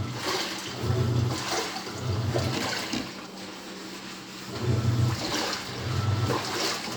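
Panasonic 12 kg washing machine in its wash cycle: the motor driving the pulsator at the bottom of the tub hums in short strokes about once a second, with a pause of about two seconds near the middle, and the water and clothes slosh in the tub.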